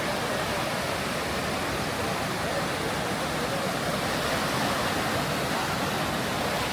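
Steady rush of ocean surf, with faint voices in the background.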